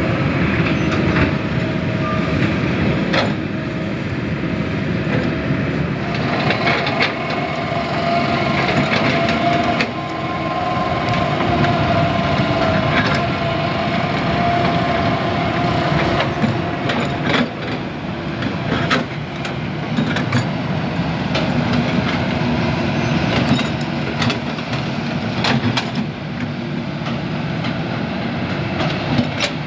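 Kobelco hydraulic excavators working at canal dredging: a steady diesel engine rumble, with a whine that rises and holds for several seconds in the middle and scattered sharp knocks.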